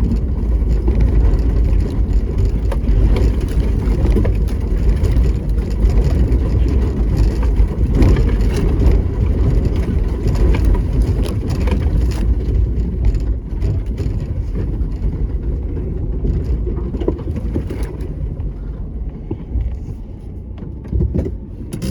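A vehicle rolling over a rough dirt track: a steady low rumble with scattered knocks and rattles from the bumpy ground, easing a little near the end.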